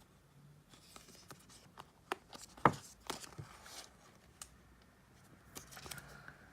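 Quiet handling of a watch sport band and its packaging: faint rustling with scattered small clicks and taps, and one sharper snap a little before the three-second mark.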